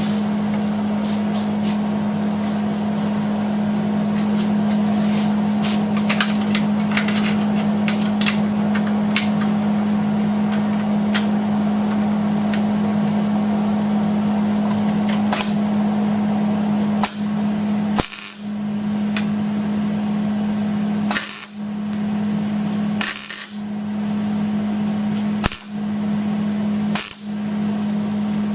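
Electric welding arc crackling while a nut is welded to the frame, over a steady electrical hum. In the second half the hum breaks off briefly about six times, each break with a sharp click.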